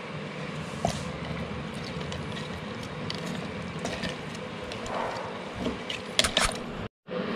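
A spatula stirring citrus peels, jaggery and water in a plastic jar, making a steady scraping rustle. A few sharp clicks of the spatula against the jar come about a second in, and several more close together about six seconds in. The sound drops out briefly near the end.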